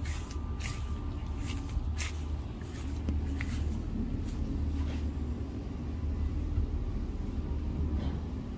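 A steady low rumble, with a few soft clicks and rustles in the first half.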